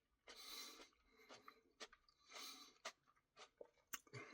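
Near silence with faint mouth sounds of someone eating ice cream: a couple of soft breaths and a few small wet clicks.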